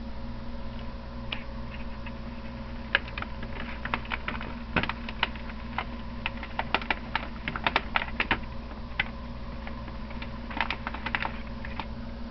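Handling noise of a handheld camera pushed through leafy plants: irregular light clicks and crackles, bunched through the middle and again near the end, over a steady electrical hum.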